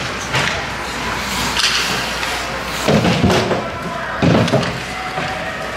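Two dull thuds about a second and a half apart in an ice rink during a youth hockey game, over people talking in the stands.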